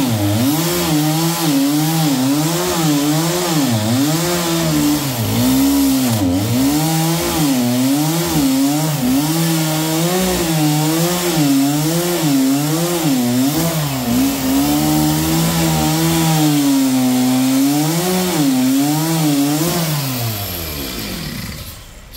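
A power saw running through walnut wood, its pitch rising and falling about once a second. Near the end the pitch slides down and the saw winds down to a stop.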